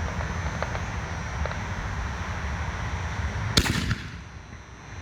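T-Sky 'Your Tube' canister firework shell fired from its mortar tube: a sharp launch thump about three and a half seconds in, then the loud crack of the shell bursting overhead right at the end.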